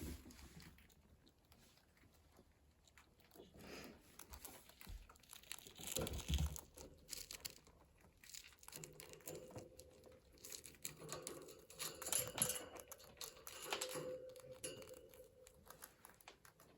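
Snack packaging crinkling and rustling on and off, faint, with small crackles and clicks that are busiest near the middle and again in the second half.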